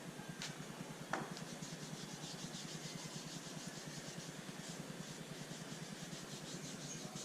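A sharp knock about a second in, then quick repeated light rubbing strokes, several a second, over a steady low hum.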